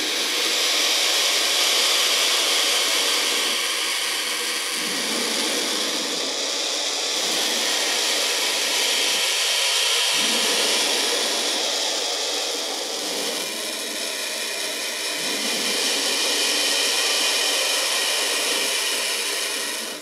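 Turkey vulture hissing: a long, steady, breathy hiss that slowly rises and falls in loudness and cuts off suddenly at the end.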